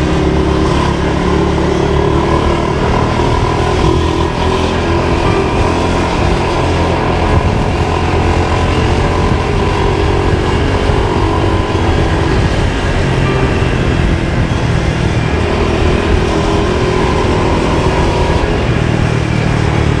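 A motor vehicle's engine running steadily.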